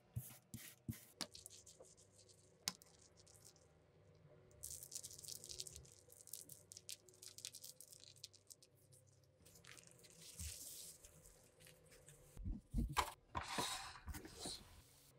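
Faint food-prep sounds: a gloved hand scraping butter across a thin whole wheat saj flatbread, then a soft scattering hiss twice as crushed pistachios are sprinkled over it. Near the end come a few louder thumps as the lid of an electric contact grill is handled.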